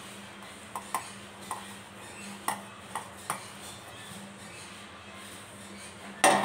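Fried onion pieces and fingers tapping and clinking against a stainless-steel mixer-grinder jar as it is filled by hand: several small clicks over the first few seconds, then one loud metallic clank with a short ring near the end. A faint steady hum sits underneath.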